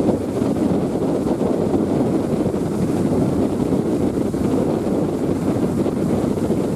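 Steady wind buffeting the microphone on the deck of a moving JR Miyajima passenger ferry, over the low rush of the ferry's engine and the water.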